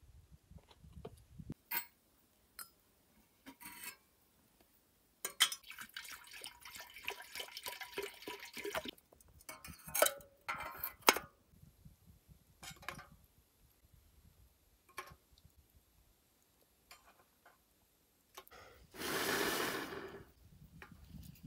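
A metal samovar being set up: clinks and clatter of its lid and fittings being handled, and a few seconds of water poured into it. Near the end, about a second and a half of blowing into it to kindle the fire inside.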